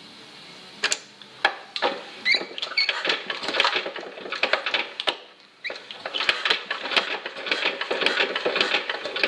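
Old Chaise Vega single-cylinder stationary engine being turned over by hand in an attempt to start it: a rapid, dense clatter of mechanical clicks and rattles, with a short pause about five seconds in.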